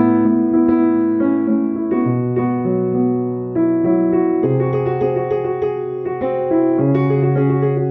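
Background piano music: an electric piano playing sustained chords over a low bass line, the notes changing every second or so.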